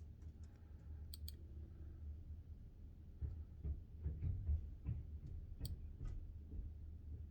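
Light clicks and taps of hands handling small laptop parts and connectors on a workbench. There are two sharp clicks, about a second in and near the end, and a busier run of small knocks in the middle, over a steady low hum.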